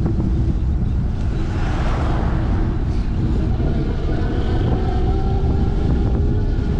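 Wind rumbling on the microphone and tyre noise of a fixed-gear bicycle rolling on asphalt, with a car passing close by, its noise swelling and fading about two seconds in.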